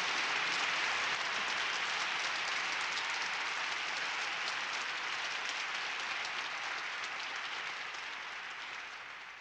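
Audience applause: dense clapping that swells in, holds, then slowly dies away toward the end.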